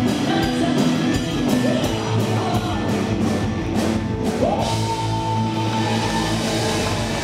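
Live rock band with drum kit and electric guitars playing a fast rock and roll number. About halfway through, a high note slides up and is held.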